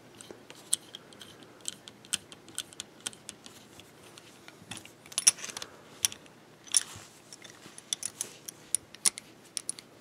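Key turning in the lock of a 1944 Reuben, Craddock & Sons Darby handcuff as the steel cuff is worked open and shut: a run of small metallic clicks and clinks, with a few louder clinks about five, seven and nine seconds in.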